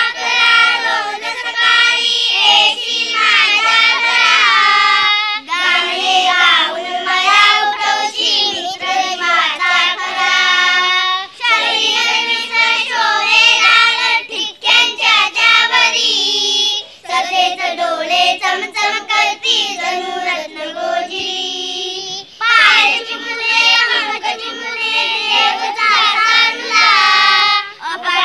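Children singing a Marathi school action poem together, in sung lines broken by short pauses about every five to six seconds.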